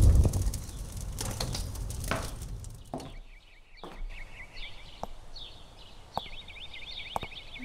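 Bird-like chirping over a few faint clicks. The chirps start sparse and become a fast, even trill near the end.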